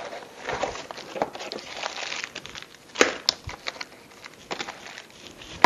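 Cardboard box being handled and opened, its flaps rustling and scraping, with a couple of sharp clicks about three seconds in.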